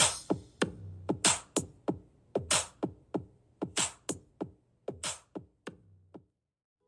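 Background music: a drum-machine beat of deep kick drums that drop in pitch and sharp snare and hi-hat hits, cutting off about six seconds in.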